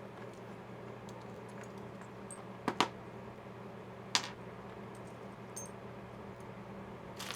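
A few small sharp metal clicks from RV compartment-lock parts being handled: two close together just before three seconds in, one at about four seconds and one near the end, over a faint steady hum.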